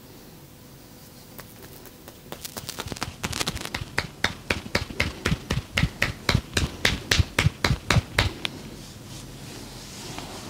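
Percussive massage: hands striking the body in quick, even strokes, about four a second, starting faint, growing louder and stopping near the end.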